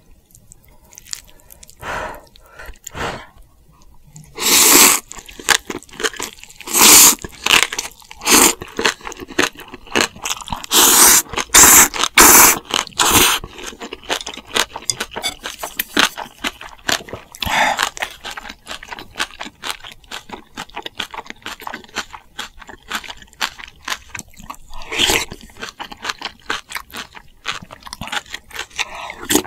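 A person eating close to the microphone: crunchy chewing sounds with small clicks throughout, and a series of loud, noisy bursts in the first half.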